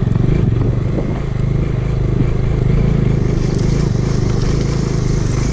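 Motorcycle engine running steadily at low speed in a low gear as the bike rides over a rough, rocky gravel track, heard from the rider's position, with a hiss that grows stronger about three and a half seconds in.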